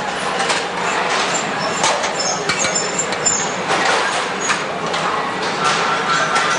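Plier-factory floor noise: a steady din of metalworking with irregular metallic clicks and clanks and a few brief high ringing tones, from the department where plier cutting edges are hand-filed.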